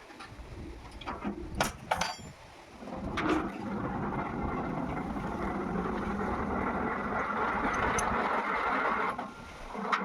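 A few sharp clicks, then from about three seconds in a steady rushing flow of water from the discharge pipe of a newly fitted 3 HP submersible borewell pump, which the crew judge too weak for the pump's size.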